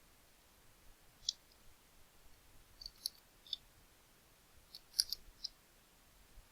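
Faint computer mouse clicks: a handful of short, sharp clicks in small scattered groups, over quiet room tone.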